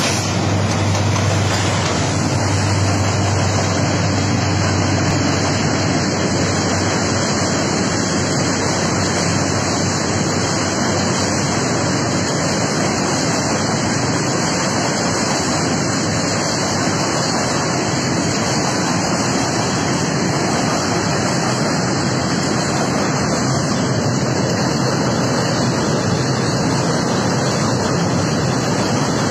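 Container freight train rolling across a steel girder rail bridge: a steady, loud rushing noise, with wind on the microphone mixed in. A low diesel locomotive hum stands out in the first few seconds.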